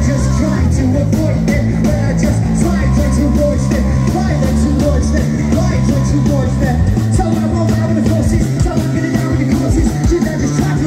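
Live rock band playing through a PA system: a singer over electric guitar and drums, with steady drum hits throughout. The deepest notes drop away about seven seconds in.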